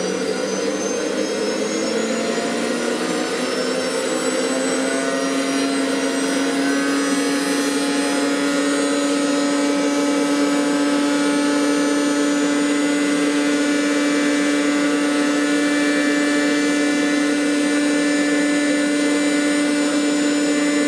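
JetCat P-160 model jet turbine spinning up in its propane-assisted start, a whine that rises in pitch over the first several seconds and then holds steady.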